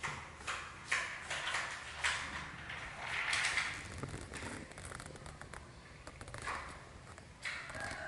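Hard plastic knocks and clacks as a baby monkey handles the parts of a broken toy truck on a plastic stool: several sharp knocks in the first two seconds, a short scrape a little after three seconds, then quieter handling.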